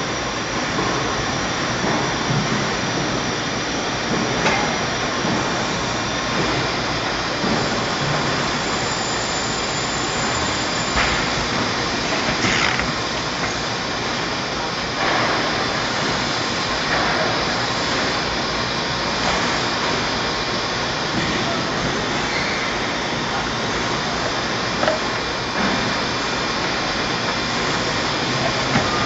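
Steady machine hiss and hum of a running paper guillotine, with a few short knocks as paper stacks are pushed and squared on its table.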